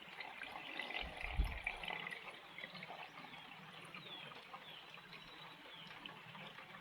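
Antifreeze being poured from a jug into the radiator of a 1995 Ford F-150 to top up low coolant, with a low thump about a second and a half in.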